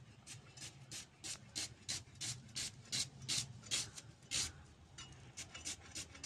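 A red onion being sliced against the upright blade of a boti, a floor-mounted kitchen blade: a short crisp rasping crunch with each stroke, about three a second, with a brief pause a little past the middle.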